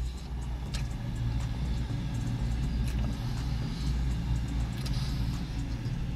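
Chewing a large mouthful of doner kebab in naan bread, over a steady low rumble.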